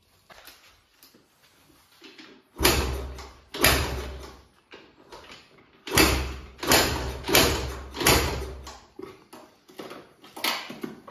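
2004 Husqvarna WR125 two-stroke being kick-started: a series of about nine kicks, each a short mechanical burst as the engine is spun over and dies away within half a second, five of them in quick succession midway. The engine does not catch and run.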